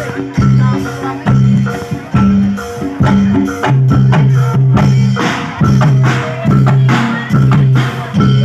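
Javanese gamelan-style music for reog and jaranan: struck metal keyed instruments play repeated ringing notes over a steady drum rhythm.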